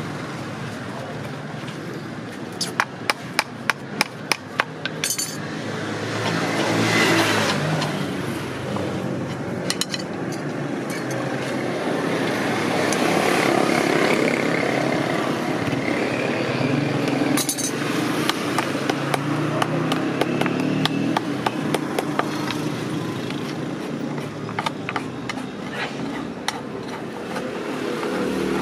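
Farrier's hammer tapping on a horseshoe, about eight sharp strikes in two seconds early on, then scattered small clicks and scraping of farrier's tools on the hoof, over a steady background of passing traffic.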